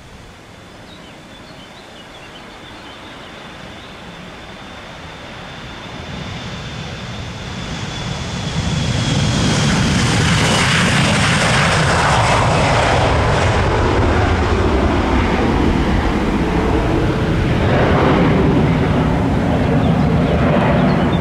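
Jet airliner taking off. The engine noise builds over several seconds to a loud, steady rumble, and a high whine drops in pitch as the plane passes.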